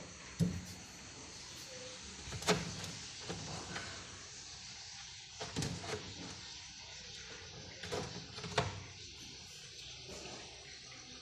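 Egg incubator being handled: several scattered knocks and bumps, about six in all, over a steady faint hum.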